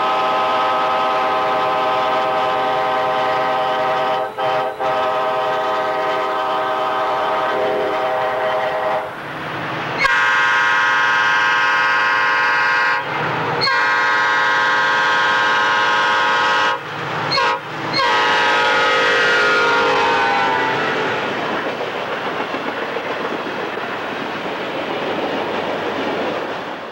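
Amtrak passenger locomotive's air horn sounding a chord in several long blasts with brief breaks and one short one. Near the end its pitch drops as the train passes, leaving the steady rumble of the rolling train.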